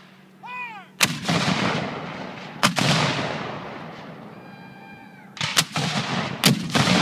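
Civil War field artillery cannons firing blank charges: a series of about five loud blasts, each followed by a long fading echo.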